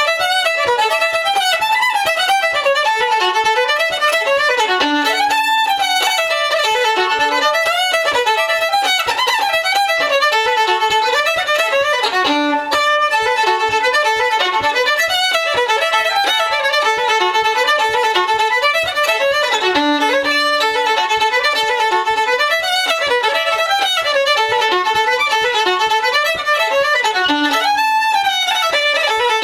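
Solo fiddle playing a fast Irish-style reel, quick even runs of notes with no accompaniment.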